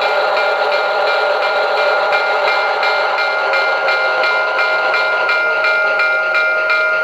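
Recorded diesel locomotive running sound played by a QSI Maxx Traxx model-train sound panel. It is a steady engine drone with a few held tones, and a regular clicking about three times a second.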